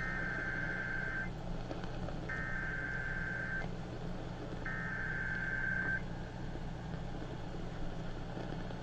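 Emergency Alert System SAME header, the digital data bursts that open an alert and encode it, here a flash flood warning: three bursts of shrill warbling data tones, each a little over a second long with about a second between them. A steady low hum from the AM radio runs underneath.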